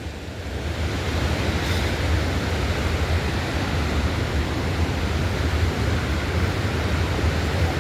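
Waterfall roaring steadily, an even rushing noise with a deep low rumble.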